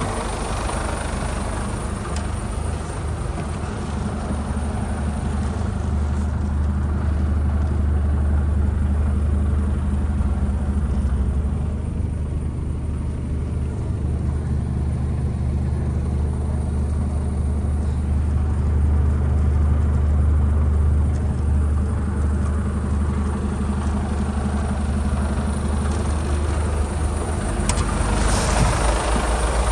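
Mercedes-Benz Actros 2445 tractor unit's six-cylinder diesel engine idling steadily, a deep even hum with no revving.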